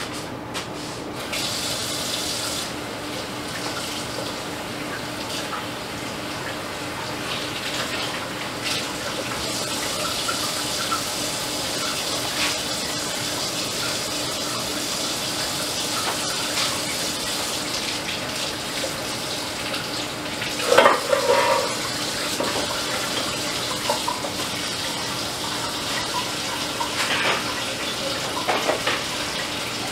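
Kitchen tap running steadily into a sink, with scattered clinks and one brief louder clatter about two-thirds of the way through.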